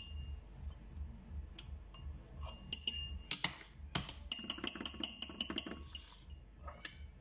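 Metal spoon clinking against a small ceramic bowl as mayonnaise is scooped and worked in it: a few separate ringing clinks, then a quick run of about ten clinks just past the middle.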